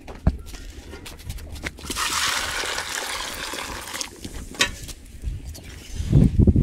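Water being poured into a metal cooking pot, a steady pour lasting about two seconds, with small clinks of metal. Near the end come a few loud low knocks as a pot is handled.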